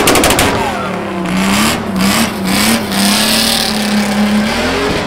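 Mini Cooper drift car's V6 engine revving hard through a spin, the revs rising and falling several times a second then held high near the end, with a burst of tyre squeal about three seconds in.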